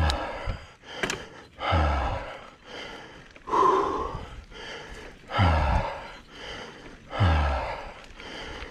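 A mountain biker breathing hard from the effort of pedalling: loud, gasping breaths, one about every two seconds.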